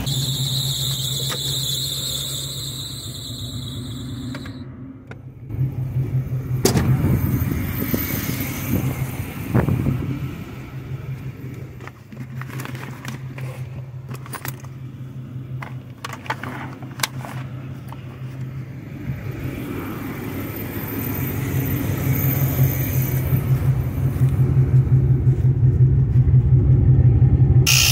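A 1986 Chevrolet Caprice Classic's engine idling steadily, with clicks and rattles of tools being rummaged in a bag partway through.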